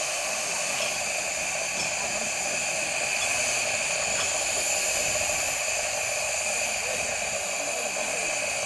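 Steady high hiss of steam venting from a 15-inch-gauge Romney, Hythe & Dymchurch Railway steam locomotive.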